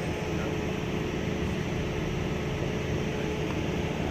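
Steady mechanical drone with a constant hum, level throughout with no distinct events.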